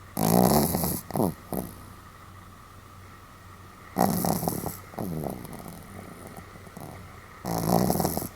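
Pomeranian dog snoring loudly, three snores about four seconds apart, the first followed by two short snorts.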